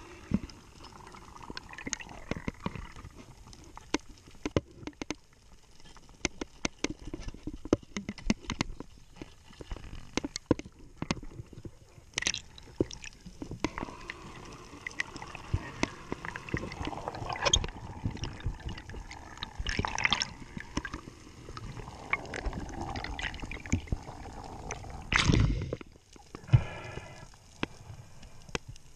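Underwater sound picked up by a diver's camera: a constant scatter of sharp clicks and crackles, with a few louder gurgling rushes of water and bubbles, the strongest near the end.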